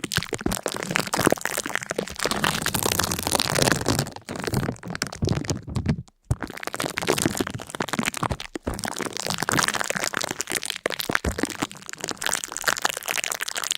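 Dense crackling and crunching: many small sharp cracks in quick, irregular succession, cutting out briefly about six seconds in.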